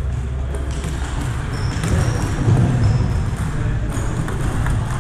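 Table tennis hall ambience: a steady low hum with scattered light clicks of ping-pong balls from play at the tables, and two short high squeaks partway through.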